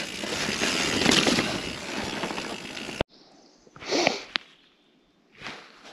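Mountain bike riding down a rocky trail: a steady rushing rattle of tyres on stones and wind, which cuts off suddenly about halfway. Then it goes quiet, broken by two short sounds.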